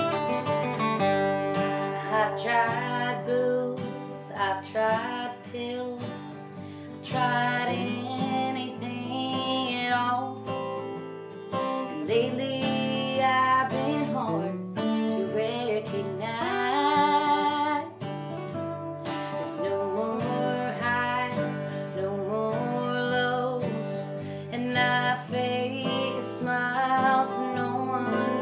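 Two acoustic guitars strummed and picked together, accompanying a woman singing a country song.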